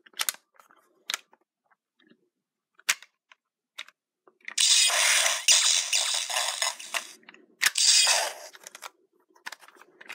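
Master Morpher role-play toy: a few sharp plastic clicks as its mechanism is worked, then about four and a half seconds in a loud hissing, crackling electronic sound effect from its small speaker lasting a couple of seconds, and a second shorter one about a second later.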